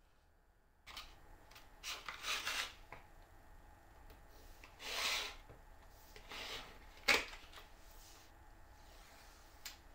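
Masking tape being pulled off its roll in short rasping strips and rubbed down onto a wooden block, with a single sharp click a little past the middle.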